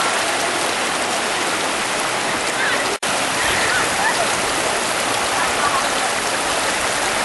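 Floodwater rushing past in a steady loud wash, breaking off for an instant about three seconds in.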